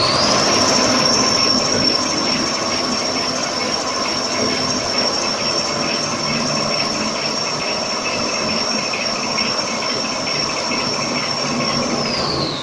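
Toilet paper roll production line machinery running: a high electric-motor whine climbs to speed, holds one steady pitch over a dense clatter of rollers and conveyors, and falls in pitch near the end as the machine runs down.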